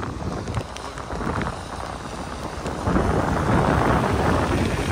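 Wind buffeting the phone's microphone on a moving scooter, over the scooter's running and road noise; the rumble grows louder about three seconds in.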